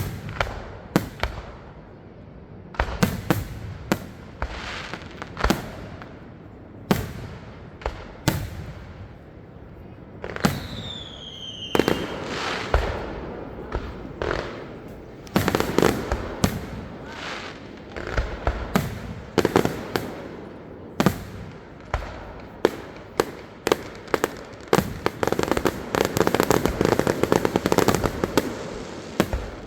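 Aerial fireworks bursting overhead: a steady series of sharp booms and pops. About ten seconds in, one shell gives a falling whistle, and near the end the bursts crowd into a dense run of rapid crackling.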